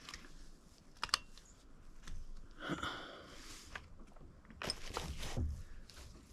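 A few sharp clicks, the loudest about a second in, with stretches of rustling: handling noise close to the microphone.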